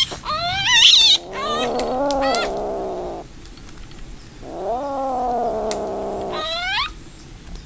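Kitten yowling, a defensive warning cry at a threat: two long, low, drawn-out wails, with shrill squeals in the first second and a rising squeal closing the second wail.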